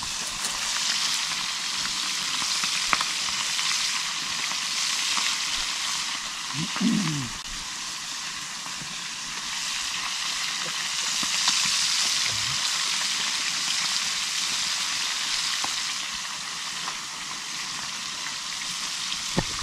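Small river fish frying in very hot oil, a steady high sizzle with scattered small pops. A short wavering call breaks in about seven seconds in.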